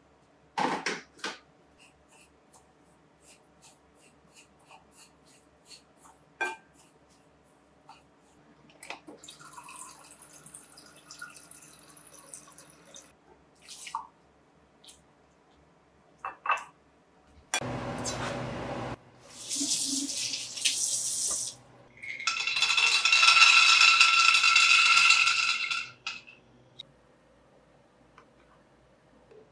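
Running water, in several bursts, the longest and loudest lasting about four seconds late on, with scattered light clinks and knocks of utensils and glassware.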